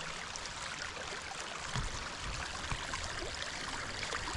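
Irrigation ditch water running steadily, a continuous trickling rush, with a couple of faint low knocks partway through.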